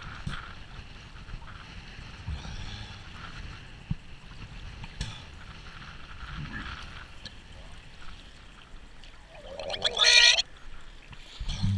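Sea water lapping and small splashes around a kayak, then about ten seconds in a loud, strained voiced heave from a seasick kayaker retching. A shorter, lower thump follows near the end.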